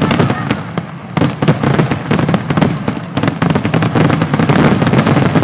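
Fireworks display going off in rapid succession: dense, overlapping loud bangs and crackles with no let-up.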